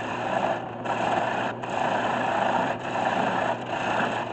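Turning tool cutting the foot of a spinning spalted maple dish on a 1981 Delta 12-inch wood lathe: a rough, steady cutting noise that breaks off briefly about once a second as the tool is lifted and set back, over the lathe motor's steady hum.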